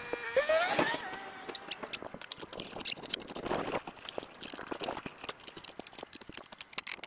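Parts of a Gorilla Cart being handled during assembly, its plastic dump bed and steel frame giving irregular clicks, taps and scrapes. A brief rising tone comes about half a second in.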